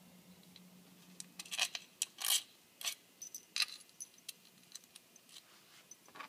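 Small metal tools and parts clinking as they are handled, in scattered sharp clicks and clatters, loudest about two seconds in. A faint low hum runs under the first half.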